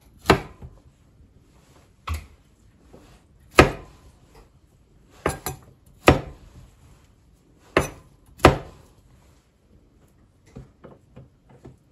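Chef's knife chopping broccoli stems on an end-grain wooden cutting board: about eight sharp, irregular knocks a second or two apart, then a few lighter taps near the end.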